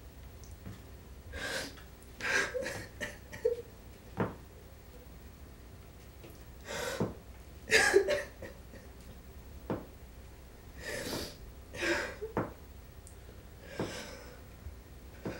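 A woman crying in gasping, shuddering sobs, breaths caught in short bursts with some voice in them, the loudest about eight seconds in. A few light knocks fall between the sobs.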